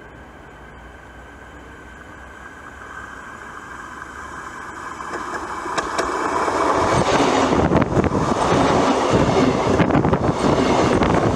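ES2G "Lastochka" DC electric multiple unit approaching along the track and growing steadily louder. From about seven seconds in, a loud rumble and clatter of its wheels and bogies as it runs directly over a microphone lying between the rails, with sharp clicks over the rail.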